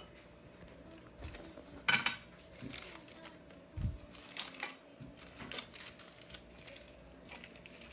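Kitchen handling sounds from adding stock cubes to a soup pot: scattered clicks, taps and short rustles. There is a louder rustle about two seconds in and a dull knock near four seconds.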